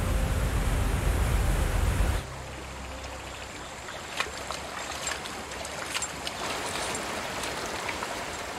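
A waterfall rushing, cut off suddenly about two seconds in by a quieter trickle of water with scattered single drops falling.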